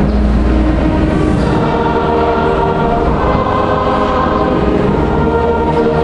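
Church choir singing with long held notes over a steady low rumble.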